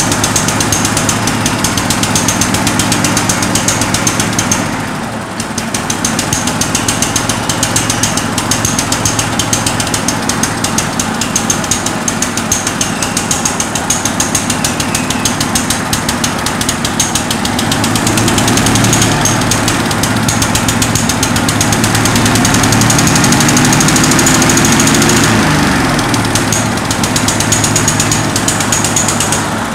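The replacement petrol engine on a 1963 Bolens Husky 600 lawn tractor runs fast and rough on old fuel and an old spark plug. Its revs dip briefly about five seconds in, climb over several seconds later on, then drop sharply near the end. It will not come off choke well and over-revs, because the throttle linkage to the governor is not connected.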